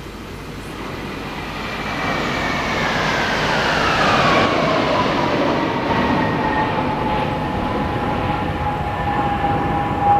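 Military aircraft passing low overhead: a roar that builds to its loudest about four seconds in, with a whine that falls in pitch as they go by, then settles into a steady whine as they move away.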